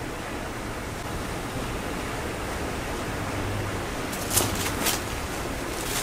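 Steady rushing hiss of wind in a snowstorm. About four seconds in come a few short, sharp clicks.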